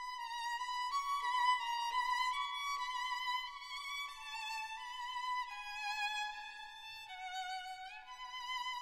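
Background music: a solo violin melody with vibrato, moving from note to note and sliding up in pitch near the end.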